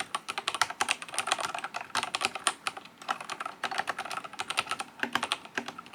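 Fast typing on an IQUNIX OG80 Wormhole mechanical keyboard: a quick, continuous run of key clacks, with brief pauses about three seconds in and again near the end.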